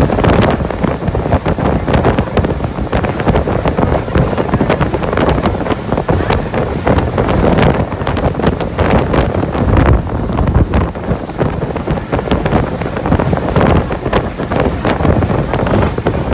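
Wind buffeting the microphone on a small open motorboat under way, over the rush of the boat's motor and water against the hull.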